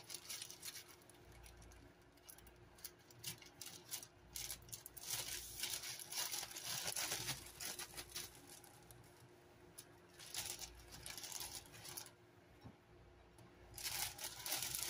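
Plastic bread bag crinkling in several short spells of handling while thick slices of bread are pulled out of it.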